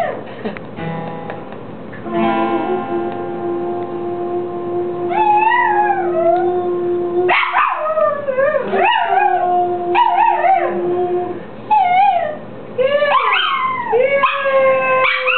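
Chihuahua howling along to music: a string of wavering howls that rise and fall in pitch, starting about five seconds in and repeating to the end, over a steady held note.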